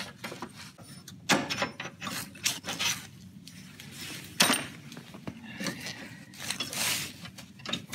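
Scattered clicks, knocks and rubbing as rubber V-belts are worked off a snow blower's pulleys by hand, with a sharper knock about a second in and another about halfway through.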